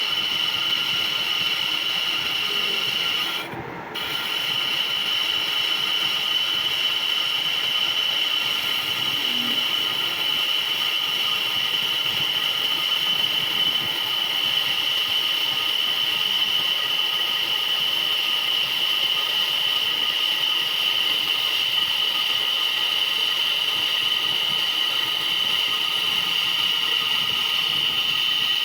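Metal lathe at work, with a steady high-pitched squeal that breaks off briefly about three and a half seconds in.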